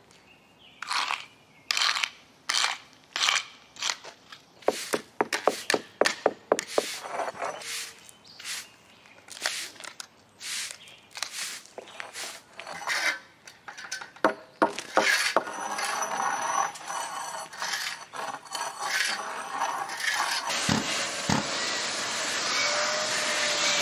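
Repeated scraping strokes of hand tools, a long-handled scraper and a push broom, on a concrete patio as dirt is cleared from the joints. About fifteen seconds in, an industrial dust-extractor vacuum starts and runs with a steady rushing noise, louder near the end.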